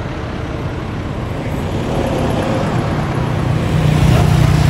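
Motor vehicle engine running with road noise while moving along a street, growing louder in the last second or so.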